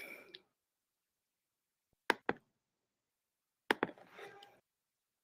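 Computer mouse clicking while another presentation file is being opened: two pairs of short clicks, about two seconds in and again about a second and a half later, with silence around them.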